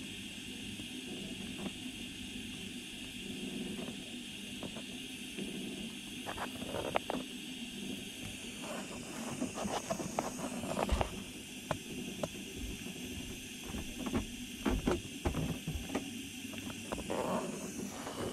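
Steady hiss over a low hum, with scattered light clicks and knocks from handling, more of them in the second half, while a wire is soldered onto a diesel engine's starter solenoid terminal.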